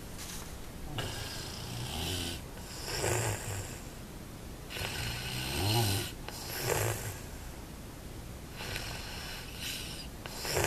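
A person snoring in repeated noisy breaths, several of them with a low buzzing snore, loudest about six seconds in and again at the end.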